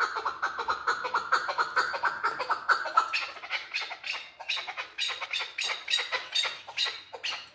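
Male chukar partridge calling: a fast run of short repeated notes, about six a second, then from about three seconds in, higher notes coming more slowly, a few a second.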